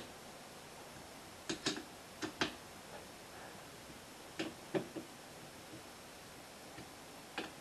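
Light metallic clicks and clinks of a hex key being seated in and nipping up socket-head screws on a steel lathe chuck. The clicks come sparsely in small groups: a pair about a second and a half in, another pair a second later, three close together around the middle, and one near the end.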